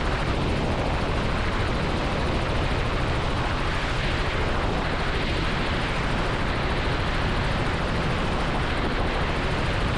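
Robinson R44 helicopter in flight, heard from inside the cockpit: a steady noise of engine and rotors.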